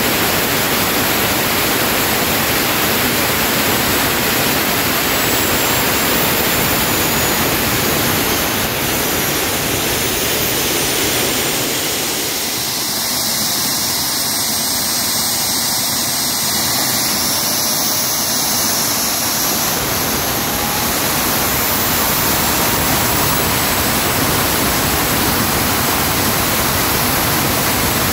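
Homemade jet engine running steadily on its test stand: a loud, even rushing noise with a faint high whine that drifts slowly in pitch.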